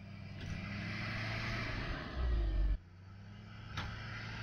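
Truck engines working under load with tyres spinning in deep snow, as a stuck pickup is pulled out on a tow chain. The sound cuts out abruptly about three seconds in and comes back, with a sharp click soon after.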